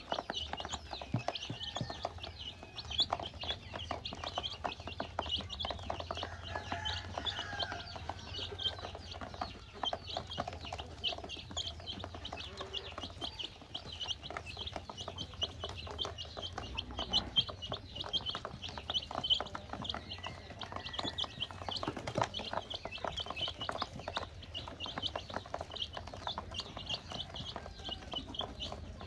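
A flock of baby chicks peeping constantly as they feed: a dense chorus of short, high peeps, many a second, without a break.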